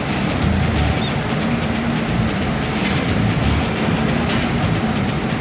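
Steady rumble and hum of a CNC machining line for graphite electrode nipples, with two sharp clicks about three and four seconds in.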